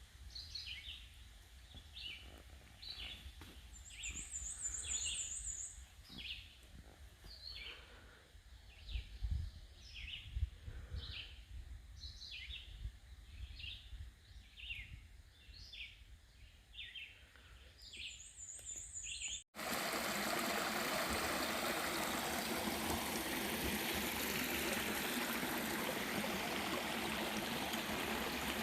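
Wild birds singing: many short, separate chirped notes, with a high, thin trill twice. About two thirds of the way through the birds cut off abruptly and a steady, loud rushing hiss takes over.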